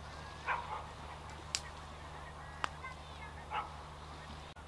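Wild geese flying over in a flock, honking a few times about half a second in and again near the end, over a steady low hum. Two sharp clicks fall between the calls.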